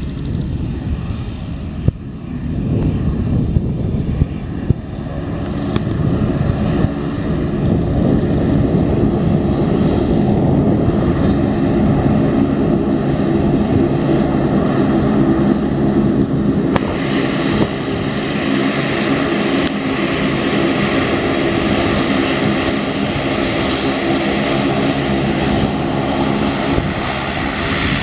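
Airplane engines running, a steady low drone with several held tones that grows louder over the first several seconds. About two-thirds of the way through, a strong high hiss joins suddenly and carries on.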